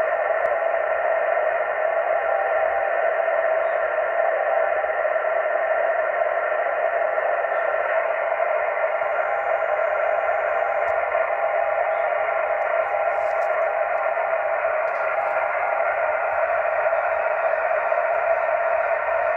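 Yaesu HF transceiver in CW mode on 7.030 MHz, its speaker giving a steady hiss of band noise through the receive filter, strongest at a middle pitch, with no clear Morse keying.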